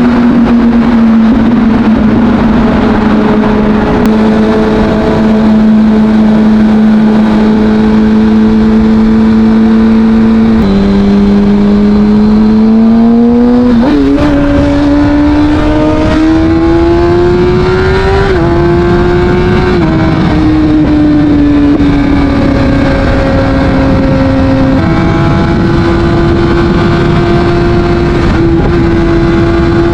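Kawasaki Ninja ZX-6R inline-four engine running through an Akrapovic exhaust at a steady cruise, over a constant rush of wind and road noise. About ten seconds in the pitch drops, then climbs as the throttle opens. It rises again and eases off, then steps up about 25 seconds in and holds steady.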